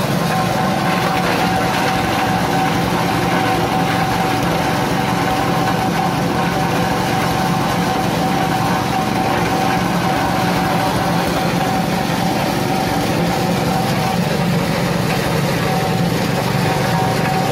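Small petrol engine driving a coconut-husk shredding machine, running steadily as it grinds husks into coir fibre, with a steady whine over the engine's drone.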